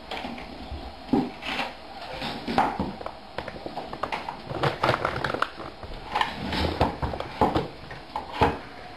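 Metal dog food bowls clattering and knocking as they are handled and set down on a wooden floor: a string of short, irregular knocks and clinks, several of them sharp and loud.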